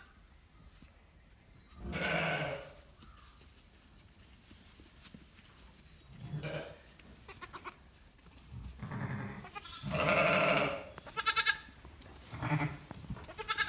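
Border Cheviot ewe and lambs bleating: about seven separate bleats, some low and some higher with a quaver, the loudest about two and ten seconds in.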